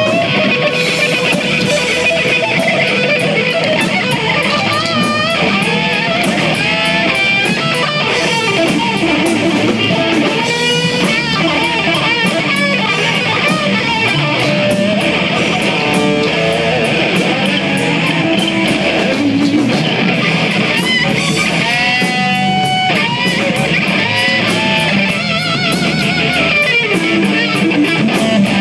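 Live rock band: a Stratocaster-style electric guitar plays a lead line full of string bends and vibrato over drums with steady cymbal hits.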